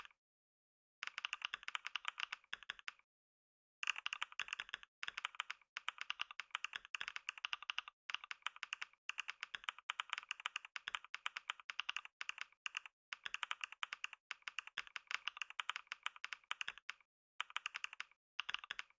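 Computer keyboard typed on very fast: a dense, rapid stream of keystrokes in long runs broken by brief pauses, starting about a second in and stopping near the end.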